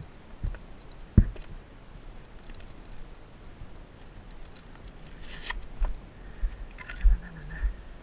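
Scattered clicks and knocks with some rustling as motocross boot straps and buckles are worked by hand. A brief hissing rustle comes about five seconds in, and a few sharper knocks follow near the end.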